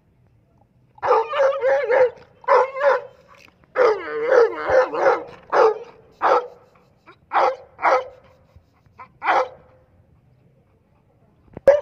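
A dog barking and whining: a run of long, wavering cries starting about a second in, then about five short single barks spaced about a second apart.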